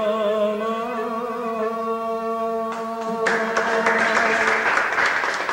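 Middle Eastern song ending on a long held sung note over the ensemble. About three seconds in, audience applause breaks out and carries on under the fading last notes.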